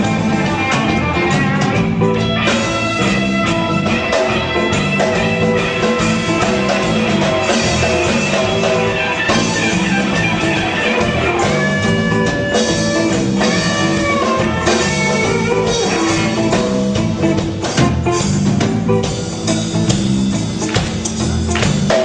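Live rock band playing an instrumental passage with no vocals, guitar to the fore over bass and drums.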